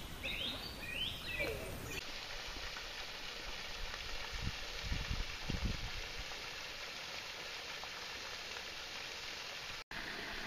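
Outdoor ambience: a few bird chirps at first, then after a sudden change a steady even hiss with a few low thumps in the middle.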